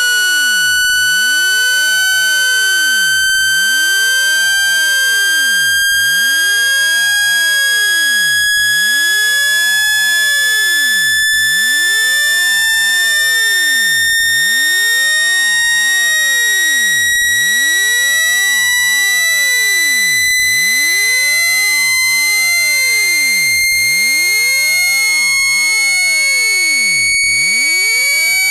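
A loud, continuous electronic tone gliding slowly and evenly upward in pitch, with a high shrill edge. It is a speaker-cleaning tone, played at full volume to vibrate trapped water out of a phone speaker.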